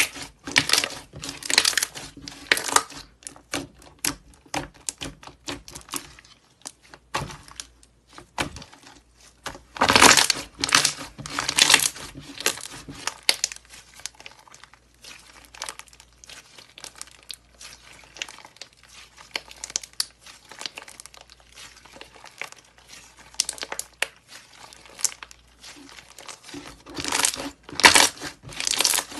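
Thick white slime squeezed, kneaded and stretched by hands, crackling and popping densely as trapped air is pressed out. The crackling is uneven, with louder spells about a second in, around ten seconds in and near the end.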